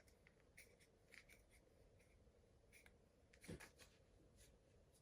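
Near silence with a few faint, scattered clicks and light taps of handling, and one slightly louder knock about three and a half seconds in.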